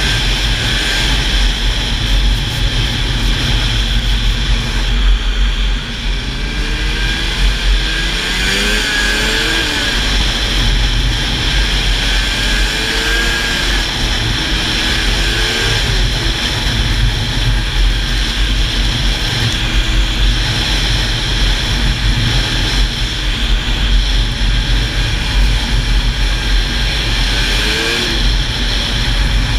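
Old Ski-Doo snowmobile's engine running steadily at speed, its pitch rising and falling a few times between about a quarter and half of the way in and again near the end as the throttle changes, under a steady rush of wind noise.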